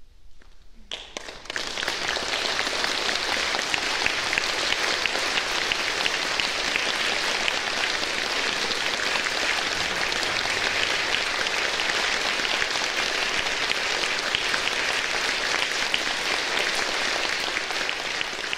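Audience applause: a few first claps about a second in, then quickly filling into steady, dense applause.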